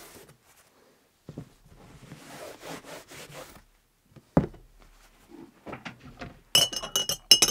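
Rustling and rubbing of a disposable glove being handled, then a single knock as a glass jar is set down. From about six and a half seconds, a metal spoon clinks rapidly against the glass jar while stirring gelatin dissolved in hot water.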